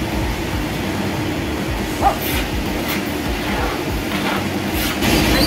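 Electric pet hair clipper running steadily as it trims a poodle's coat, with one brief squeak about two seconds in.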